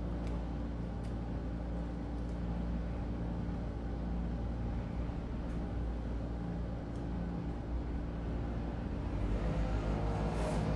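A steady low hum with several held tones, like a machine or appliance running in the room, with a few faint soft ticks.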